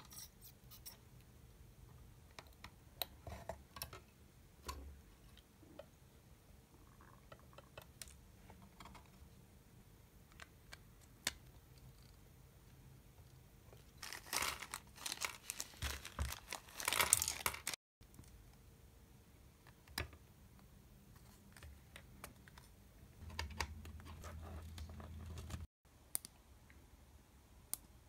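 Small plastic clicks and taps of hands working parts onto a keypad circuit board, scattered throughout. Midway, a few seconds of dense crinkling and rapid clicking as key caps are pressed onto the tactile switches. A low hum runs for a couple of seconds near the end.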